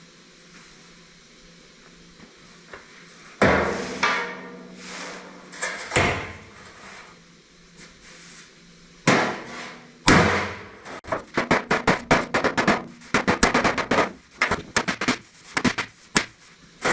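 Hammer blows on the sheet-metal panel of a 1959 Chevrolet truck bed, backed by a sandbag, knocking out dents. After about three quiet seconds come a few single blows that ring briefly, then a fast run of quick blows in the second half.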